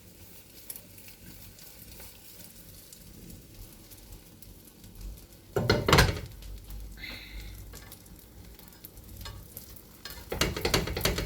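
Egg omelette frying in a pan over low heat, sizzling faintly with light crackles. A utensil clatters against the pan briefly about halfway through and again near the end.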